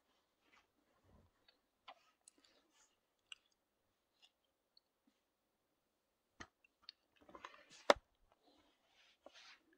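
Laptop being handled: scattered faint clicks and taps, then rustling with one sharp knock about eight seconds in.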